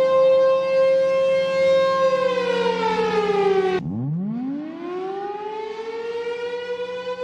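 Tornado warning siren wailing: a steady tone that slides down in pitch, breaks off sharply about four seconds in, then starts again low and rises back up to its steady pitch.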